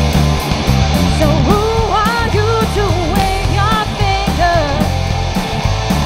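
Live rock band playing: electric guitar, electric bass and drum kit, with cymbals struck in a steady beat. A woman sings a phrase from about a second and a half in until near the end.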